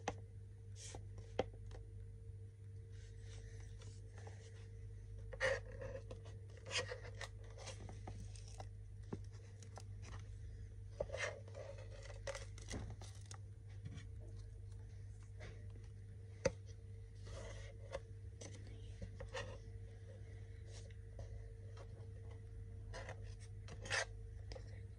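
Fingernails picking at and peeling dried glue off a white tray: scattered soft scratches, crackles and small clicks, over a steady low hum.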